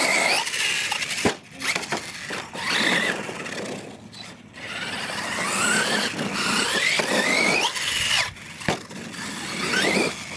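Losi LMT RC monster truck's electric drive motor, running on a 3S LiPo battery, whining up in pitch in repeated bursts as the throttle is punched. The whine comes over the scrabbling noise of the tyres on loose dirt.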